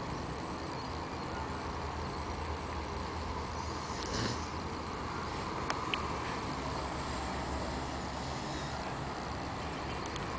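A grown man snoring, with a couple of small clicks about six seconds in.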